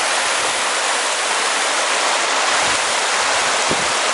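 Rain-swollen stream rushing: a steady, loud rush of water.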